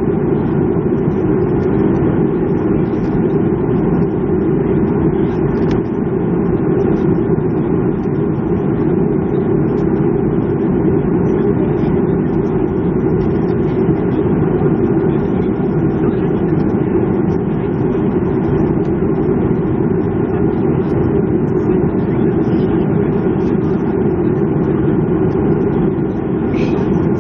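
Boeing 737-300's CFM56 jet engines heard inside the passenger cabin as a steady, unbroken drone with a low hum.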